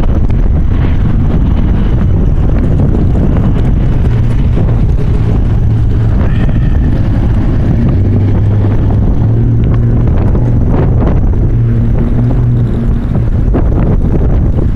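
Strong wind gusting over the microphone, a loud continuous rumble and buffeting. Through the middle a low steady hum runs alongside it.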